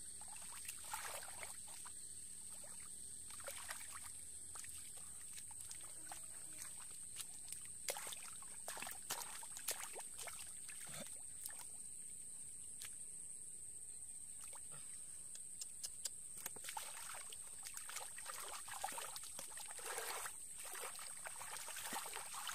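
Hands splashing and sloshing through shallow muddy water, groping for fish, with irregular splashes and trickles of dripping water.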